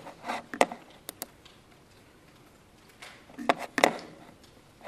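A few short, sharp computer mouse clicks: a pair about a second in and a small cluster around three and a half to four seconds, over faint room tone.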